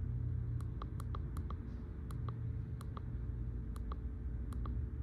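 Keypad buttons on a handheld scan tool being pressed while paging through menus: about ten short, sharp clicks at uneven spacing, over a low steady hum.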